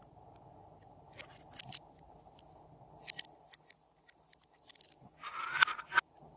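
Glossy slime being worked by hand, giving scattered sharp sticky clicks and pops, then a longer squishing stretch near the end.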